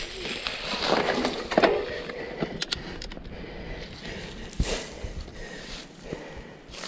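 Mountain bike tyres rolling over dry fallen leaves and dirt singletrack, a crunching rustle broken by sharp knocks and rattles from the bike over roots and bumps, the loudest about one and a half seconds in and again at about four and a half seconds.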